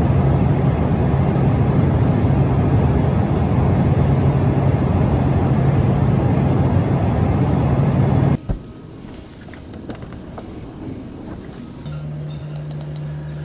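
In-flight cabin noise of a small turbofan jet in cruise: a loud, steady rush with a strong low hum. It cuts off abruptly about 8 seconds in, leaving a much quieter room tone, and a low steady hum starts near the end.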